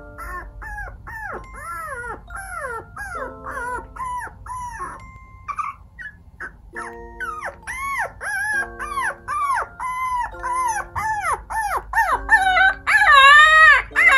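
Micro teacup toy poodle puppy whining and yipping in a rapid string of short, high-pitched rising-and-falling cries, two to three a second. The cries grow louder and longer near the end, over soft background music.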